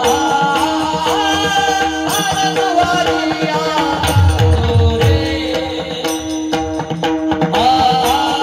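Devotional song: a voice singing a bending melody over tabla strokes and a steady held drone note.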